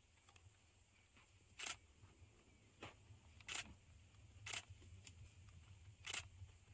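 Very quiet, with a faint low hum and five short, sharp clicks, roughly one every second or so.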